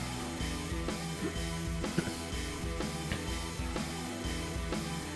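Background rock music with guitar and a steady drum beat, with one sharp click about two seconds in.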